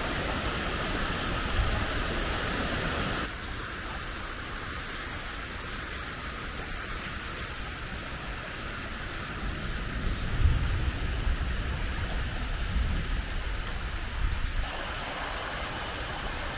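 Rainwater running in a sheet across a paved street, a steady rushing wash. The sound changes abruptly about three seconds in, and there is low rumbling in the second half.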